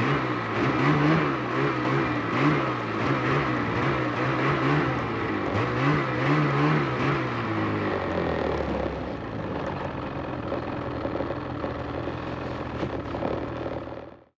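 A vehicle engine revving up and down repeatedly for several seconds, then running at a lower, steadier pitch, before the sound cuts off abruptly near the end.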